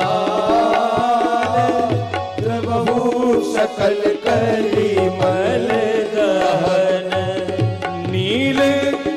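Live Hindu devotional music: a sustained melodic line carried over a steady hand-drum rhythm, without words.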